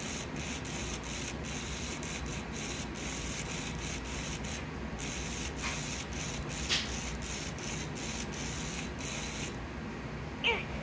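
Motor and plastic gear train of Furby toys whirring in short stop-start runs as their eyes and ears move.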